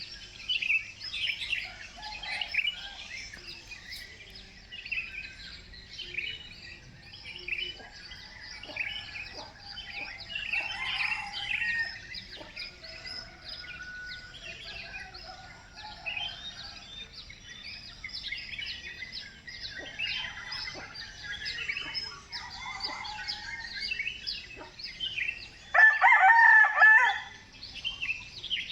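Many birds chirping continuously, and near the end a rooster crows once, much louder than the chirping.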